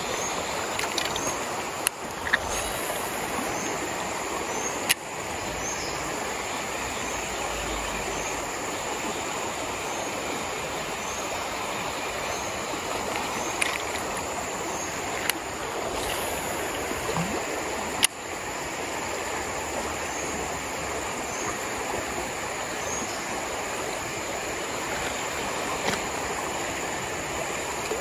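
Steady rushing of a fast-flowing river current, with a few sharp clicks scattered through it.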